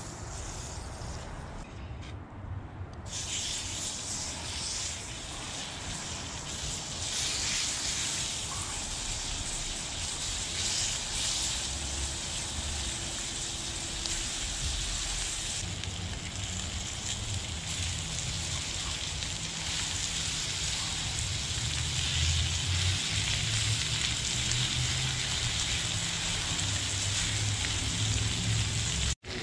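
Lamb pieces and browning butter sizzling in a frying pan over a campfire. A steady sizzle sets in about three seconds in.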